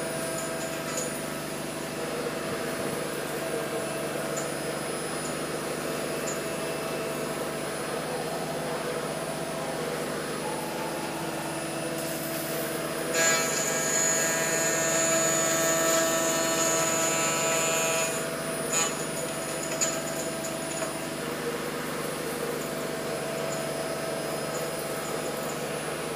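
Spindle of a home-built CNC router running an end mill through an aluminium plate: a steady whine with cutting noise. About halfway through it gets louder and harsher for about five seconds, with a high squeal, then settles back.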